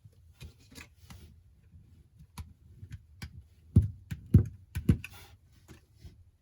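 Small clicks and taps of a phone and parts being handled on a hard work surface, with three heavier knocks in quick succession about four to five seconds in.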